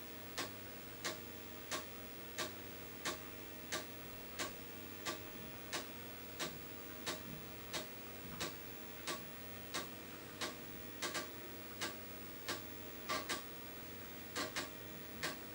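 Apple II Disk II 5.25-inch floppy drive clicking regularly as its head steps from track to track while a game loads from disk. The clicks come about one and a half a second, a few doubled near the end, over a faint steady hum.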